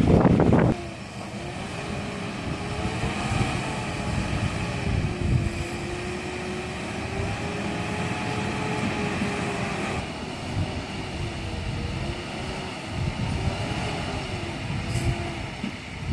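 Diesel engine of a heavy goods truck overloaded with marble stone, working steadily under load on a rough dirt mountain track, its note rising and falling gently. A brief loud rush of noise in the first second.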